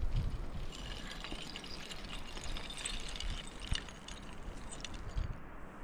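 Rope and climbing gear being handled while setting up a rappel: rustling with scattered light clicks, over a low wind rumble on the microphone.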